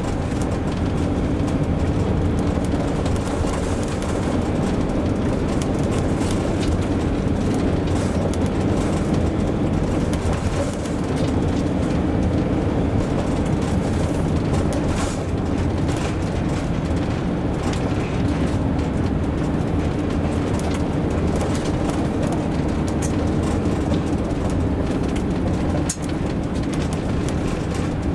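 A motorhome being driven, heard from inside the cab: a steady drone of engine and tyre noise, with occasional light rattles.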